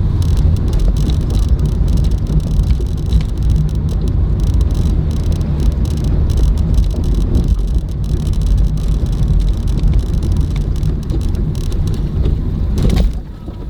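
Wuling Hongguang S van on the move: steady low engine and road noise with frequent light clicks and rattles. The noise dips briefly near the end.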